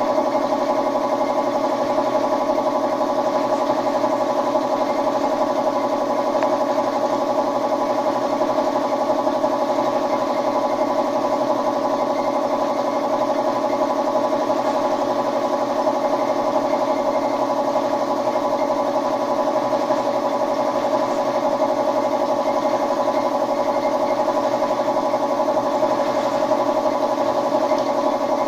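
Air compressor running with a steady, unchanging mechanical hum.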